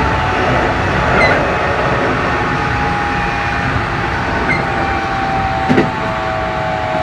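Keikyu New 1000 series electric train running, heard from inside the car: the rumble of wheels on rail with steady whining tones from its Toshiba IGBT-VVVF inverter and traction motors, and a brief knock about six seconds in.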